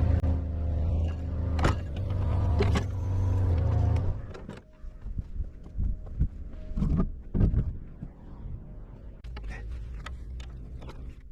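An engine running steadily, shut off about four seconds in, followed by scattered knocks and clunks.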